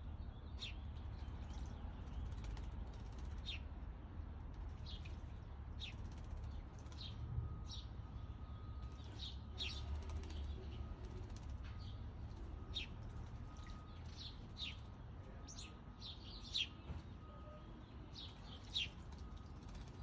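Small songbird chip calls: short, sharp, high notes repeated irregularly, a few every couple of seconds, over a low steady rumble.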